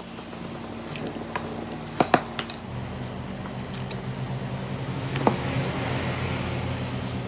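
Metal parts or tools clinking against each other a few times, loudest as a pair of knocks about two seconds in. A steady low machine hum starts about a third of the way through.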